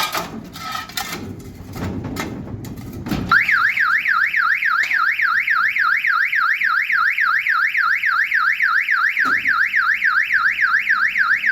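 Knocking and rattling as the sliding gate is tampered with, then about three seconds in the gate motor's alarm siren goes off: a loud electronic wail sweeping up and down about three times a second, set off by the tampering.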